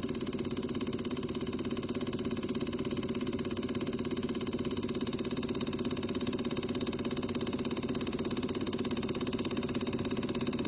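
Bosch EPS 200 common-rail test bench running a VW 1.6 TDI piezo injector in its full-load delivery test at 165 MPa rail pressure: a steady mechanical hum with rapid, even ticking from the injector firing.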